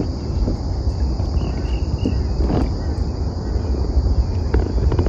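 Steady high-pitched drone of an insect chorus from the mangroves, over a low rumble of wind on the microphone, with a few faint knocks.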